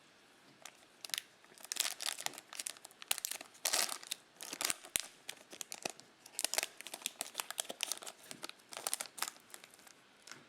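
Crinkly wrapper of a trading-card pack being torn open and crumpled by hand, in a run of crackling bursts, loudest a few seconds in.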